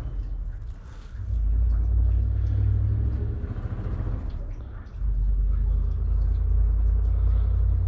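Wind buffeting the microphone: a loud, gusting low rumble that drops out briefly about a second in and again near the middle. Faint ticking from a baitcasting reel being wound in lies under it.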